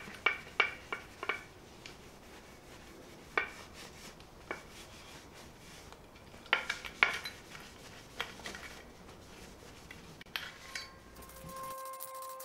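Scattered metallic clinks and knocks as an aluminium motorcycle brake backing plate is handled and wiped down with a cloth, in short clusters at the start, around a third of the way in and just past halfway.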